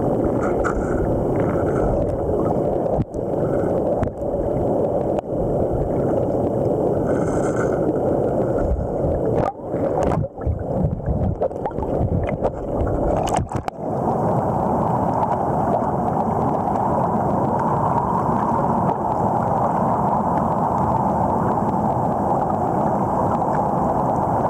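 Muffled rush of river water picked up by a camera held underwater, a steady dense noise with a few knocks and gurgles from handling. About 14 seconds in it changes to a brighter, even rush.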